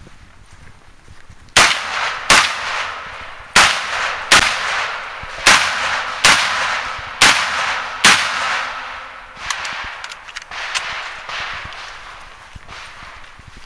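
AR-style tactical rifle firing eight shots in four quick pairs, each pair well under a second apart, every shot trailing off in echo. Fainter ticks and knocks follow over the last few seconds.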